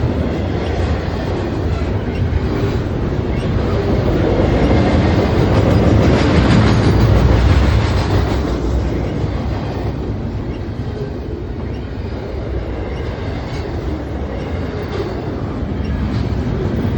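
Double-stack intermodal freight train rolling past, its cars' steel wheels rumbling steadily on the rails. The rumble swells to its loudest about halfway through, then eases a little.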